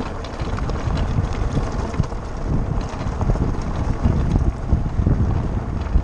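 Wind buffeting the cart's onboard microphone over a steady low rumble from the tyres on a gravel road, with many irregular small knocks and rattles from the cart as it rolls downhill.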